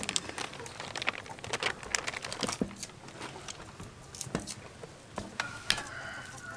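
Hands dredging raw chicken drumsticks in a metal tray of flour: irregular soft pats and rustling of the flour, with scattered light taps and clicks.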